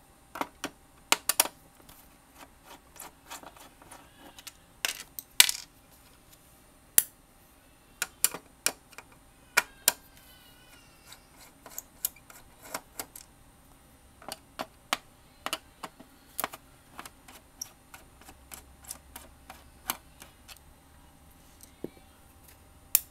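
Screwdriver working the four screws out of the plastic back cover of a Dell 1704FPVt LCD monitor: irregular sharp clicks and small metallic clinks, with a short squeak about ten seconds in.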